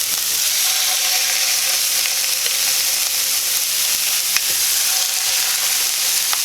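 Chicken breasts sizzling steadily in a hot frying pan greased with non-stick spray, with a few light clicks as the pieces are laid in.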